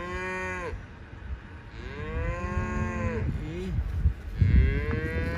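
Cattle mooing: three long moos, each arching up and then down in pitch. The first is already sounding at the start, the second comes about two seconds in, and the third begins about four and a half seconds in.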